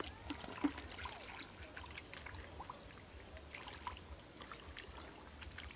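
Hands working through shallow muddy water, giving faint, irregular small splashes, trickles and squelches.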